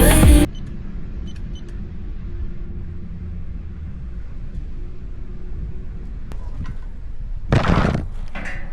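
Electronic background music cuts off about half a second in, leaving a steady low rumble. Near the end comes one brief, louder rush of noise.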